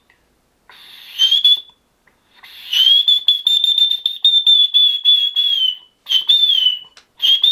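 Man's whistled imitation of a killdeer's call: a short rising whistle, then a long wavering high whistle of about three seconds, then two shorter calls that slide down in pitch near the end.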